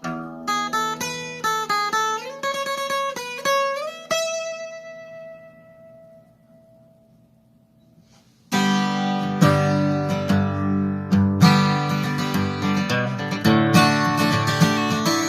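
Acoustic guitar: a run of picked notes closes one song, and the last note rings out and fades nearly to silence. About eight and a half seconds in, loud strumming starts the next song.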